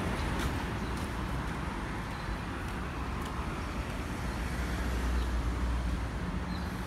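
Road traffic noise: a steady low rumble of passing vehicles, swelling louder from about four to six and a half seconds in.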